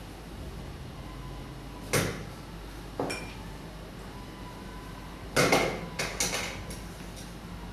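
Containers and glassware being handled on a tabletop while ingredients are measured: a sharp knock about two seconds in, another with a short ring a second later, then a quick run of clatters and clinks near the end.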